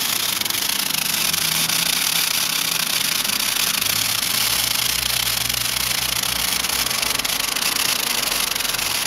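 A firework fountain spraying sparks with a steady, even hiss, with no bangs or crackles.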